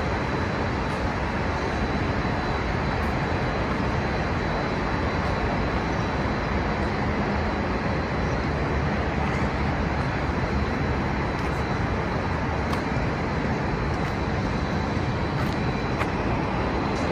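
Steady outdoor city ambience, mostly the even hum of distant road traffic.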